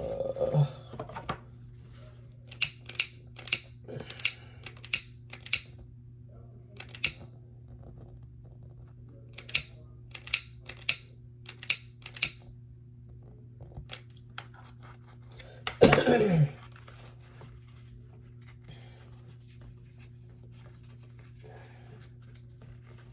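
Scissors snipping seatbelt webbing: a run of short, sharp cuts, some in quick pairs, then one louder, longer scrape with a falling tone about two-thirds of the way through.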